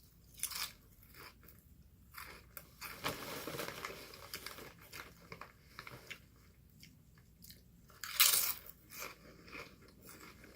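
Potato chips crunching as a person bites and chews them close to the microphone, in irregular crunches with the loudest bite about eight seconds in.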